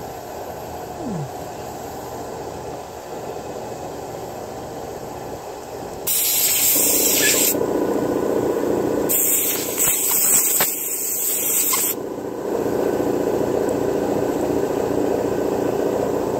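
Aerosol lubricant spraying in two hissing bursts, a short one about six seconds in and a longer one about nine seconds in, flushing old grease out of a chainsaw bearing. A steadier, lower rushing noise runs under the bursts and carries on after them.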